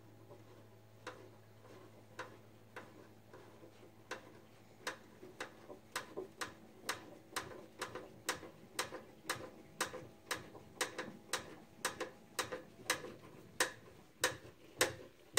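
Hand screwdriver turning screws into a desk panel: a steady series of sharp clicks, faint and sparse at first, then about two to three a second.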